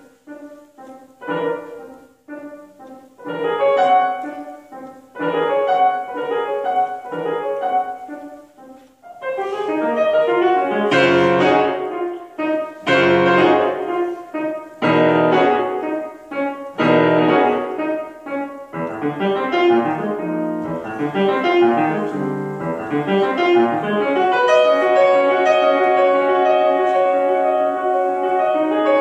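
Solo grand piano: short clusters of notes broken by brief gaps, then louder, heavier chords with deep bass from about ten seconds in, settling into long ringing chords near the end.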